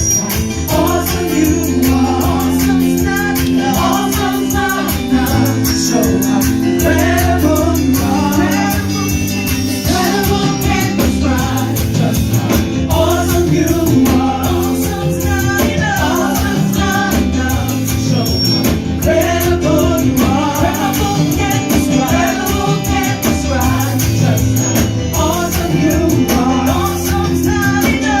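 A worship band performing a gospel song: several voices singing over held instrumental chords and a steady beat.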